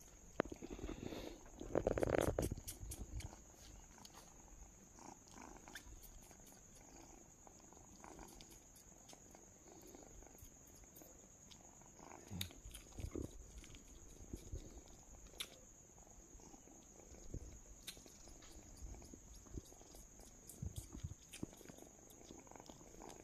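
Tabby kitten purring close up while it nuzzles and licks at bare skin, with scattered faint clicks and rubbing. A louder brief noise about two seconds in.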